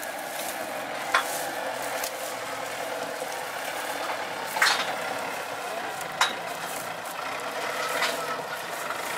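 Kubota tractor with a hydraulic sugarcane grab at work: a steady crackling rustle as the grab gathers cut cane, with about four sharp cracks or clanks spread through, the loudest a little before the middle.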